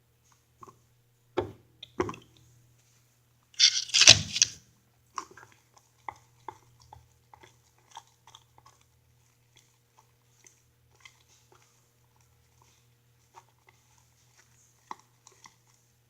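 Glitter glue and shaving cream being stirred together in a mixing bowl: scattered small wet squishing and clicking sounds, with a few sharper knocks early on and a louder, noisier squelch about four seconds in.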